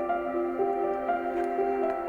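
Soft, ambient-style background music: a gentle melody of sustained notes over a held low tone.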